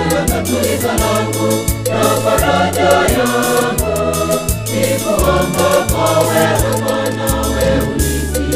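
Choir singing a gospel song over a bass line and percussion with a steady beat.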